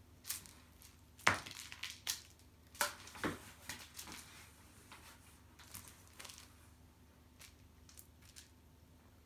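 Scratchy rustling and crinkling from a cat playing in a cardboard box and batting at a waved toy: a quick run of sharp rustles in the first few seconds, then fainter, scattered ones.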